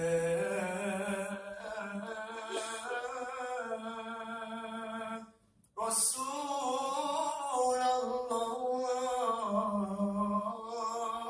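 Male nasyid group singing long held notes in close harmony, with a low hummed drone beneath. The voices stop briefly about five seconds in, then come back. Recorded on a phone, sounding muffled, as if underwater.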